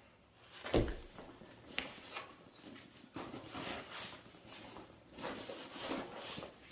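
Rustling and handling of a nylon gear bag and its recovery straps, with a dull thump about a second in and scattered soft rustles and a click after it.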